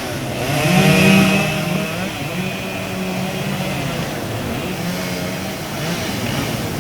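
Two-stroke chainsaw running and cutting, its engine pitch rising and falling as the throttle is worked, loudest about a second in.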